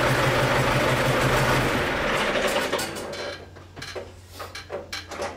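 A machine runs steadily with a low hum, then stops about two to three seconds in. It is followed by a series of sharp metallic clicks and knocks.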